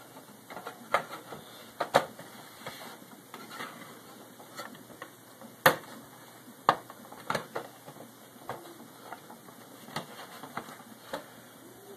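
Irregular clicks and taps of Xbox 360 plastic case parts being handled and fitted together, with one sharper knock about halfway through.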